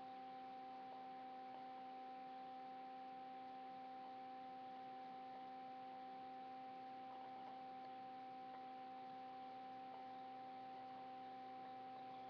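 Faint steady electrical hum made of several fixed tones, one in the middle range standing out, over a low hiss.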